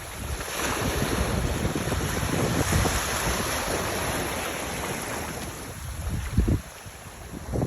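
Wind buffeting the microphone in irregular low gusts over a steady rushing noise, dropping away sharply about six and a half seconds in.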